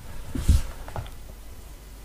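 Soft low bumps and a short breathy hiss about half a second in as a person shifts close to a sensitive microphone, then quiet room tone.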